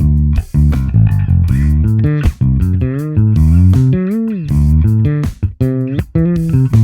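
Sonic fretless electric bass played solo: a run of plucked low notes, several of them sliding up and down in pitch between notes.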